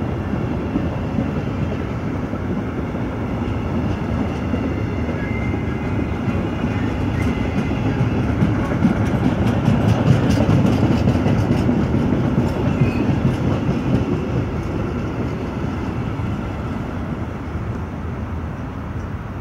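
A freight train of empty flat wagons and covered wagons rolling past, a steady rumble of steel wheels on rail with a run of clicking wheel beats about halfway through. It grows quieter over the last few seconds as the end of the train passes.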